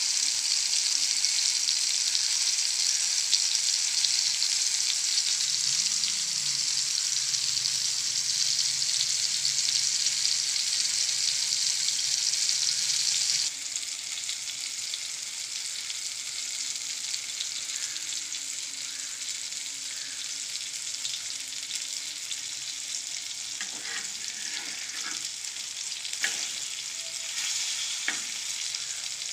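Murrel (snakehead) fish steaks shallow-frying in hot oil: a steady sizzle that drops to a quieter level about halfway through. Near the end a metal spatula clicks and scrapes against the pan a few times as the pieces are worked.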